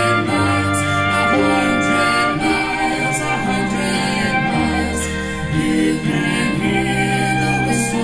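Country-folk band playing live: a man sings lead over strummed acoustic guitar, with drums and cymbals keeping the beat.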